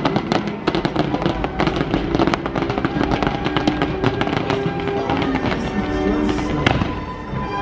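Show fireworks crackling and popping in quick succession over music.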